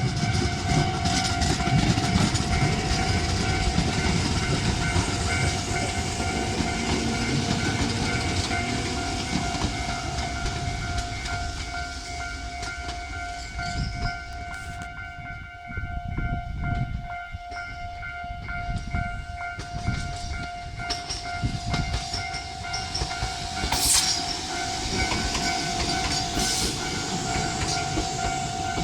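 Japanese level-crossing alarm dinging steadily over the running sound of electric trains. A Tobu 850 series train pulls away, its motors and wheels rumbling loudly at first and fading after about a dozen seconds. Train noise builds again in the second half, with a sharp brief sound about 24 seconds in.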